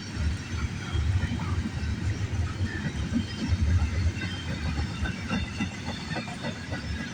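CN freight train cars rolling past on the rails, a steady low rumble with wheel clicks over the rail joints and faint high-pitched squeaks from the wheels.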